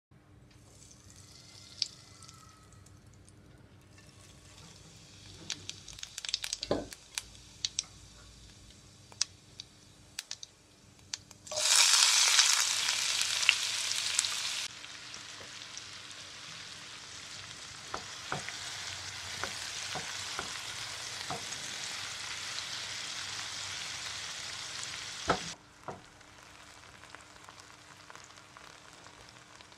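Chopped onions frying in hot oil in a nonstick pan. There are scattered clicks and taps at first, then a loud sizzle as the onions go in, easing to a steadier, quieter sizzle while they are stirred with a spatula. The sizzle drops suddenly about three-quarters of the way through.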